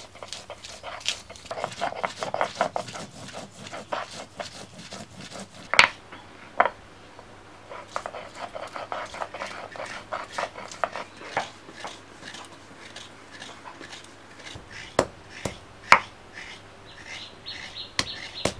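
Stone roller rubbing back and forth on a flat stone grinding slab (shil-nora) in quick rhythmic strokes, grinding spices into a wet paste. Several sharp, loud stone-on-stone knocks break in: the roller pounding whole pieces of spice.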